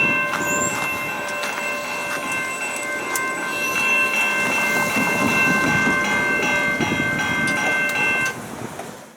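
A freight train of intermodal well cars rolling past, with wheels rumbling and clacking on the rails. A steady high-pitched ringing tone sounds over it until the sound drops away near the end.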